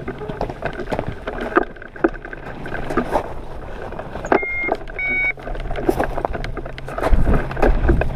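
Wind buffeting the microphone, with rustling and small knocks from the hang glider's harness and frame. About halfway through, the flight instrument on the base bar gives two short electronic beeps. The wind rumble grows louder near the end.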